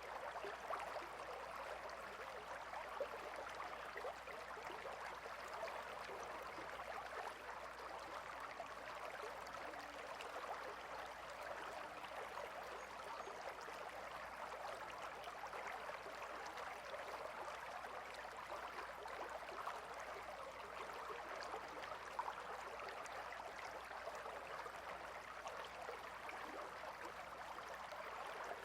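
Gentle river water flowing and burbling steadily, a soft even rush with fine splashing detail.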